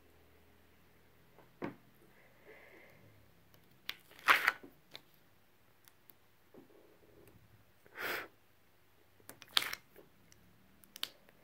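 Heat transfer vinyl being weeded with a metal hook tool on its plastic carrier sheet: scattered scratches, ticks and crinkly rustles as scraps are picked and peeled. The loudest rustles come about four seconds in, about eight seconds in and around nine and a half seconds in.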